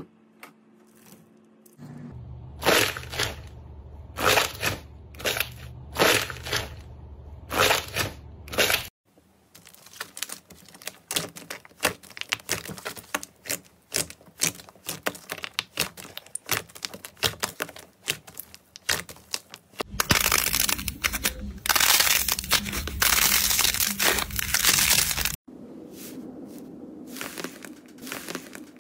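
Hands playing with slime across several short clips: about six loud presses roughly a second apart, then a long run of fine crackling and popping, then a few seconds of dense crunching that cuts off suddenly.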